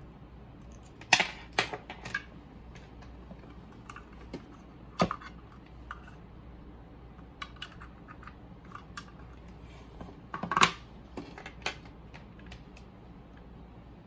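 Scattered clicks and light knocks of plastic parts being handled: a white sensor cable and its connector, plugged into a port on a plastic alarm host box. The loudest clicks come about a second in, around five seconds in and around ten and a half seconds in.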